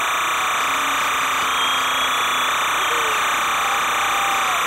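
Stadium crowd cheering after a goal: a steady wash of crowd noise with a few faint shouts rising and falling through it.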